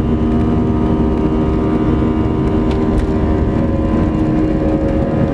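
Airbus A320-211's CFM56 turbofan engines at takeoff thrust, heard from inside the cabin over the wing: a steady buzz-saw drone of several pitched tones over a deep rumble of the takeoff roll.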